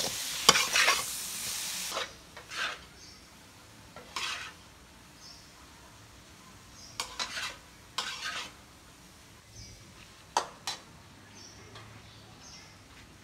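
Stir-fried noodles with cauliflower sizzling in a wok as a spatula stirs and scrapes against the pan. The sizzle cuts off suddenly about two seconds in, leaving scattered clinks and scrapes of the spatula on the wok.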